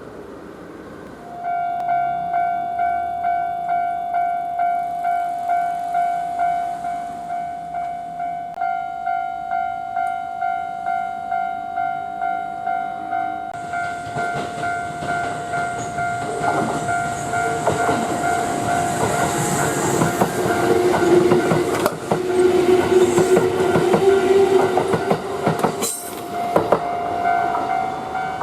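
A Japanese level crossing warning bell starts about a second in and keeps ringing at about two dings a second. About halfway through, a Kintetsu train comes up and passes over the crossing, its wheels clattering over the rail joints, loudest in the last third.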